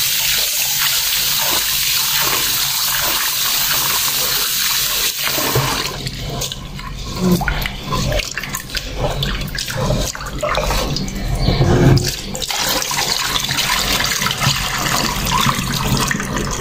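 Kitchen tap running into an aluminium pot while a hand scrubs rice grains in the water. About six seconds in the steady rush of the tap stops. The rest is irregular splashing and sloshing as the rice is swirled, and near the end the rinse water is poured off into the sink.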